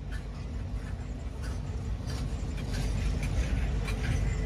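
Freight train of bottle cars rolling past at low speed: a steady low rumble of wheels on rail with scattered clicks and clanks.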